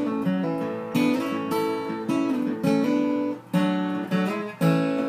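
Steel-string acoustic guitar, capoed at the second fret, strumming chords that ring out as a song intro, with a couple of brief stops between strums near the end.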